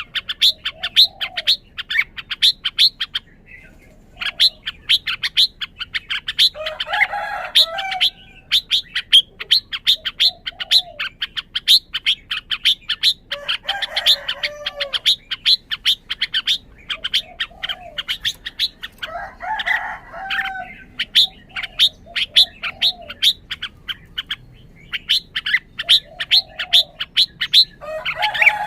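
Red-whiskered bulbul calling: long runs of rapid, evenly spaced high chirps, about seven a second, broken every six or seven seconds by a fuller warbled song phrase.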